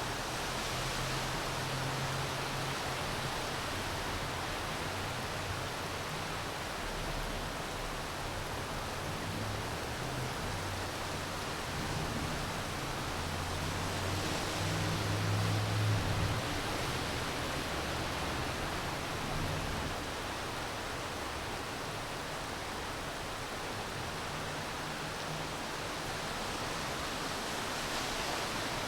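Steady hiss of falling rain. A low rumble rises under it about halfway through, then fades.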